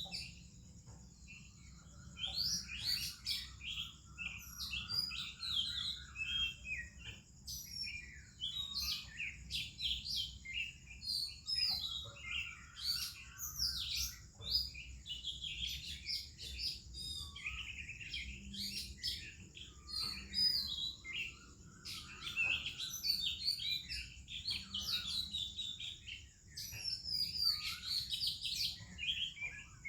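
Morning birdsong: an Oriental magpie-robin and other birds singing over each other, a dense run of sweet whistles, chirps and short repeated trills.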